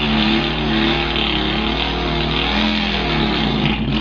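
A man imitating an air-cooled Volkswagen engine with his mouth: a steady buzzing run with a wavering pitch that dies away near the end like an engine stalling.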